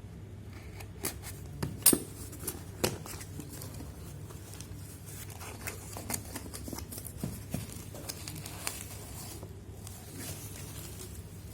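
A shipping package being opened by hand: scattered sharp clicks and rustles of packaging, the loudest about two seconds in, over a steady low hum.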